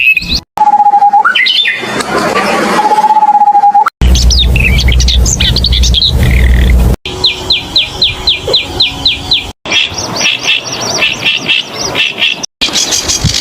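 Songs of several different small songbirds in short clips, one after another, each cut off abruptly. The first clip has a steady whistle-like tone, the second has a loud low rumble underneath, and one later clip is a rapid, even run of repeated falling notes, about four or five a second.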